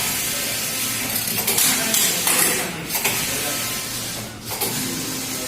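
Computerised flatbed knitting machine running, its carriage traversing the needle bed with a steady hiss, broken by brief pauses as it reverses, about three and four and a half seconds in. It is casting on automatically on empty needles, with no fabric or take-down holding the yarn.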